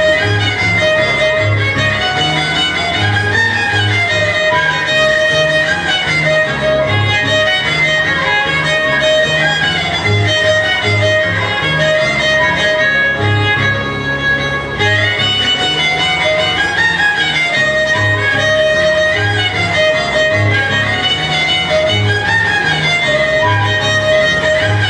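Huayno dance music from a band: a repeating high melody over a steady pulsing bass.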